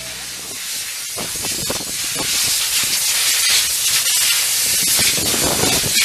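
Steady hiss of a jet from a worker's hose directed into steel rebar mesh, growing louder about two seconds in.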